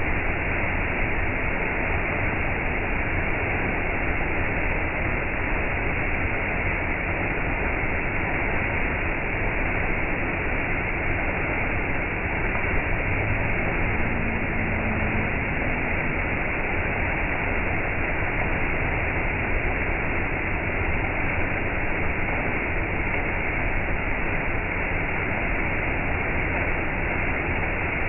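Small waterfall pouring off a rock ledge into a shallow pool: a steady, even rush of falling water.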